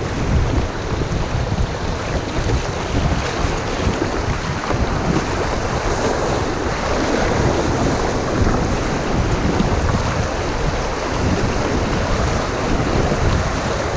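River rapids rushing and splashing around a kayak running through whitewater, with wind buffeting the microphone.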